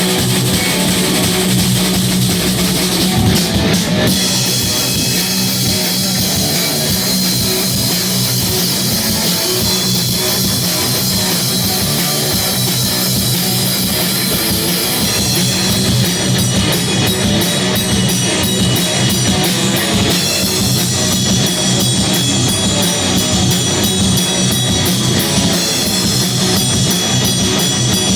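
A live heavy rock band playing loud: electric guitars, bass and a drum kit. From about halfway in, the cymbals are struck in a steady beat.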